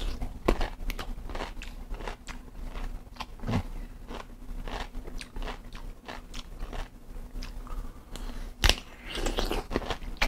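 A person biting into a pickle and chewing it, a run of crisp crunches with one louder crunch near the end.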